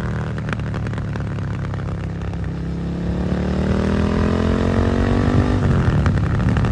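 Suzuki SV650's V-twin engine through a Dominator GP exhaust, running steadily at first, then rising in pitch and getting louder as the bike accelerates from about three seconds in. The rise breaks off near the end as it changes gear.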